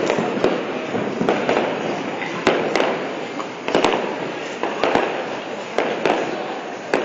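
Aerial firework shells bursting in quick, irregular succession: over a dozen sharp bangs, some in close pairs, each trailing off in a rolling echo.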